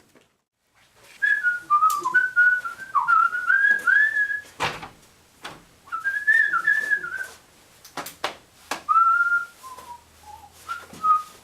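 A person whistling a tune in several short phrases, with a few sharp clicks or knocks between them.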